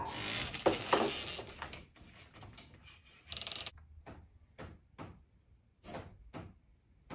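Rustling and light knocks as a steel fish tape and electrical cable are handled, then a short rapid rattle about three and a half seconds in and a few scattered light clicks.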